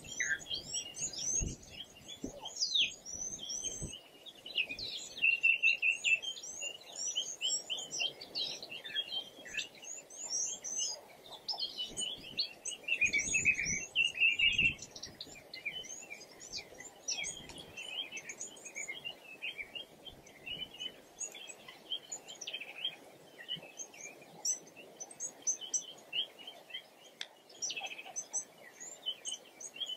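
Many small birds chirping and calling together in a dense, continuous chorus of short, quick notes, with a brief low rumble about halfway through.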